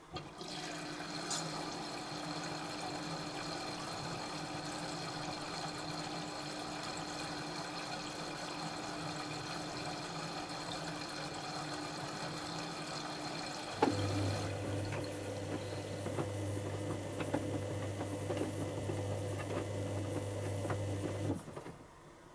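Dyson Contrarotator CR01 washing machine taking in water early in its synthetics wash: a steady rush of water filling. About two thirds of the way through, a low steady pump hum joins the water sound, and both cut off suddenly shortly before the end.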